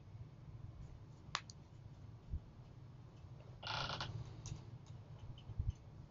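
Faint steady low hum with a single sharp click about a second and a half in and a brief scratchy noise near the middle.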